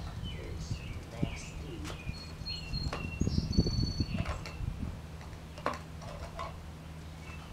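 Birds chirping and calling in the background, with a few sharp clicks from handling a metal can holding a punctured lithium battery. A low rumble swells in the middle.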